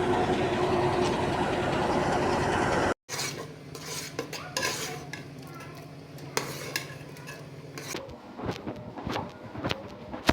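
Kitchen work sounds: a loud, steady hiss for about three seconds, then, after a sudden cut, light clinks and scrapes of utensils against pots and dishes as something is stirred, over a low steady hum.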